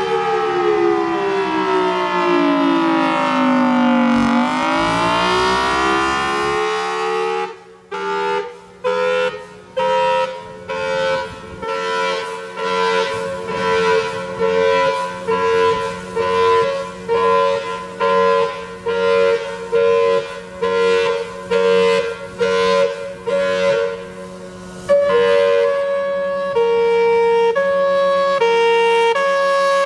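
A loud siren-like wailing tone that glides down in pitch and back up. It then breaks into a pulsing tone, a little over one pulse a second, and near the end steps back and forth between a few pitches.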